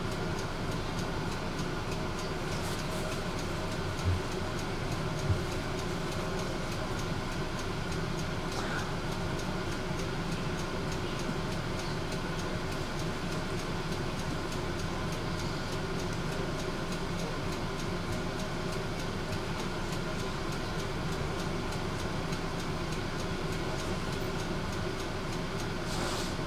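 Tram in motion, heard from inside the car: a steady running rumble with faint steady whining tones, and two short low thumps about four and five seconds in.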